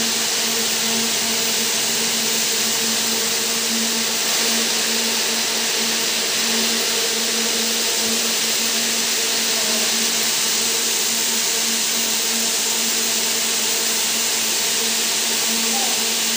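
Yarn twisting frames running: a steady whirring hiss from many spinning spindles, with a steady machine hum underneath.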